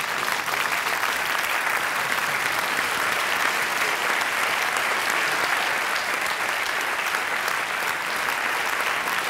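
A large audience applauding steadily, a dense, even clapping.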